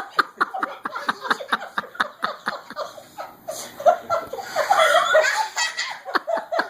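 Hearty laughter in quick repeated pulses, about four or five a second, giving way about halfway through to wavering, higher-pitched laughter.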